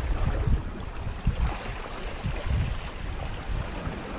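Wind buffeting the microphone in uneven low gusts, over a steady wash of small waves on the sea.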